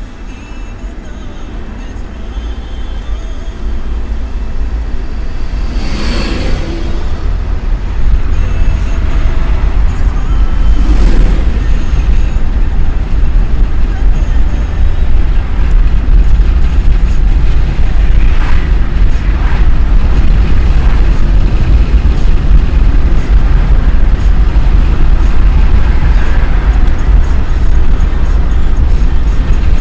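Car driving, with a heavy low road-and-wind rumble that grows louder over the first ten seconds or so as it gathers speed, then holds steady. Two brief whooshes come about six and eleven seconds in.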